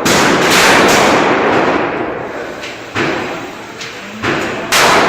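Handgun shots echoing in a range: a loud shot at the start and another near the end, with two lighter bangs between, each trailing off slowly.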